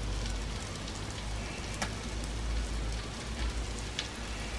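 Fish patties and green asparagus sizzling on a grill: a steady crackling hiss over a low hum, with a couple of sharp pops, one a little under two seconds in and one near the end.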